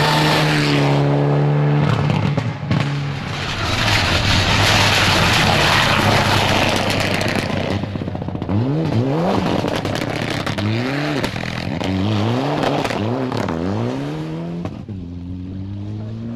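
Mitsubishi Lancer Evolution rally cars on a gravel stage. The first passes with its engine note falling away. The next goes by with a loud rush of engine and tyre noise, then its engine note rises and falls several times in quick succession as the driver lifts off and goes back on the throttle, before a steadier rising note as it pulls away and fades.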